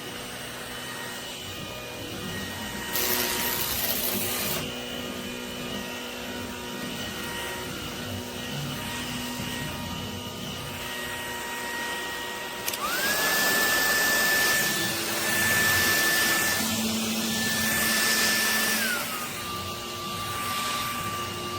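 Dreame R20 cordless stick vacuum running with a steady high whine and a brief rush of air about three seconds in. About thirteen seconds in the motor speeds up sharply with a much louder rush of air, then about six seconds later drops to a lower pitch and keeps running.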